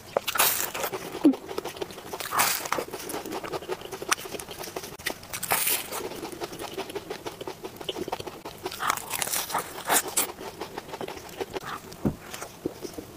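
Close-up crunching and chewing of a flaky pastry tart, with many small crackles and snaps as the pastry layers break and a few louder crunches along the way.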